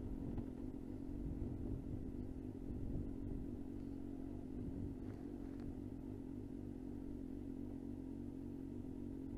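Suzuki GSX-R motorcycle engine running at steady, low revs on the move, with no revving up or down.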